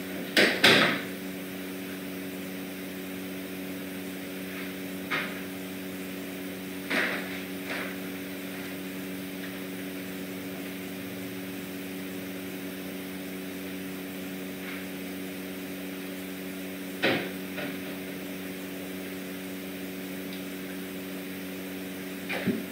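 Steady low hum of room equipment, with a few short knocks and clatters; the loudest is a double knock about half a second in, and softer ones come now and then.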